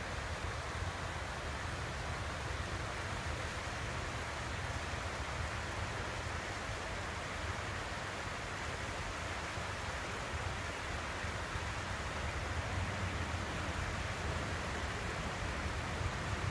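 South Fork of the Merced River rushing over rocks: a steady water noise, with a low rumble underneath.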